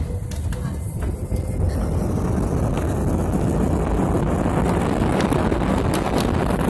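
Jet engines and runway rumble of an Airbus A320-family airliner, heard from inside the cabin during the departure roll. It is a steady, deep rumble that grows fuller and a little louder over the first couple of seconds.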